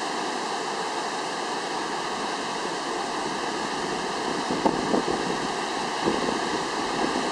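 Apikuni Falls, a tall waterfall plunging down a rock cliff, gives a steady, even rush of falling water. In the second half there are a few low thumps over it.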